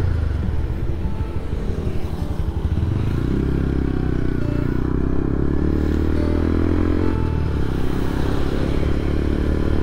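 Motorcycle engine running under way. Its note rises steadily from about three seconds in and levels off around seven seconds, over a constant low rumble.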